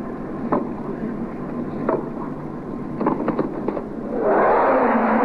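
Tennis rally: sharp racket-on-ball hits about every second and a half, then several quick hits and bounces close together near three seconds. About four seconds in the arena crowd starts applauding as the point ends.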